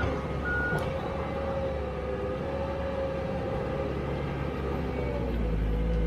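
Komatsu D31EX crawler dozer's diesel engine running under load as the machine pushes dirt with its blade. A short high beep sounds about half a second in, and the low engine sound grows heavier near the end.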